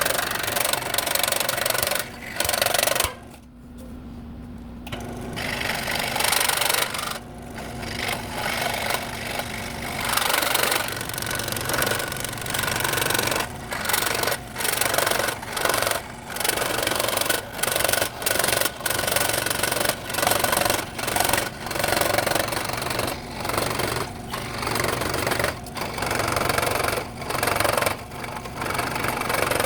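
Scroll saw cutting wood in short runs, stopping and restarting many times, with a longer pause about three seconds in.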